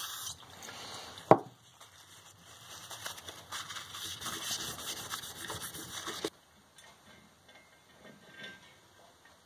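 A short hiss of aerosol cleaner sprayed onto a two-stroke engine's cylinder head, a sharp knock about a second in, then a cloth rubbing and polishing the head's combustion chamber for several seconds before it cuts off suddenly.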